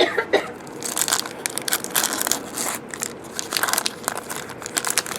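Foil trading-card pack wrappers crinkling and tearing, in a run of irregular rustles and crackles as packs are opened and handled.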